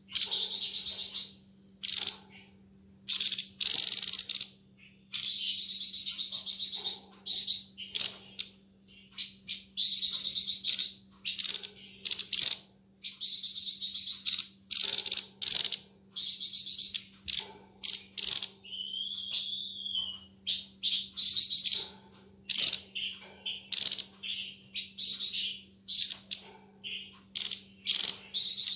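Tepus dada putih (white-breasted babbler) singing: bursts of very rapid, sharp, gunshot-like trills, each from under a second to about two seconds long, repeated with short gaps. A single arched whistle comes about twenty seconds in, and a faint steady hum runs underneath.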